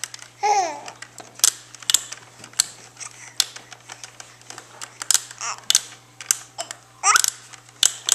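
A baby squeals near the start and gives a short rising squeal about seven seconds in, between repeated sharp clicks and clacks of the plastic toys on a baby bouncer's activity tray.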